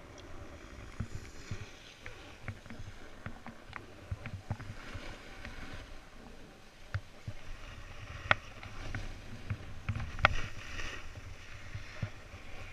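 Rider's gear hissing and scraping as it slides down groomed, packed snow, with wind rumble on the helmet-mounted camera's microphone. Scattered sharp clicks and knocks run through it, the loudest about eight and ten seconds in.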